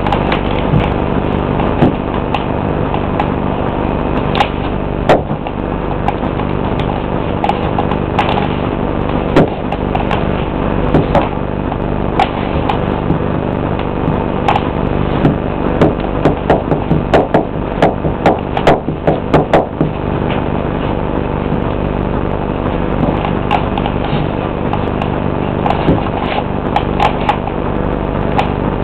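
Bloch pointe shoes knocking and tapping on a hard floor as the dancer rises onto pointe and comes down, scattered single taps with a quick run of them in the middle. A steady electrical hum runs underneath.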